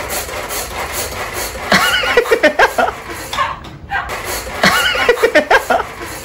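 A person laughing in two short bouts of rapid chuckles, over a steady grinding whir from an electric food chopper.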